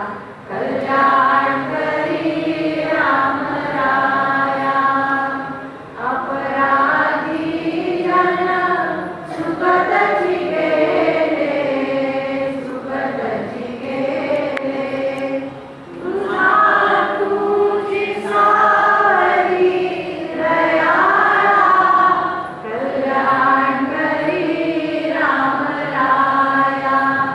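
A group of voices, mostly women's, singing a devotional prayer together in unison, line by line, with short breaths between the phrases.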